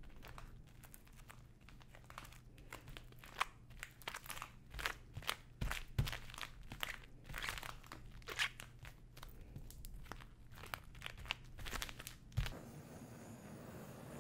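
Rubber-gloved hands pressing and smoothing a slab of hot, tacky sugar on a silicone mat, the gloves sticking to and peeling off the surface in an irregular run of crackles and crinkles. Near the end, a cooking torch's flame hiss starts again.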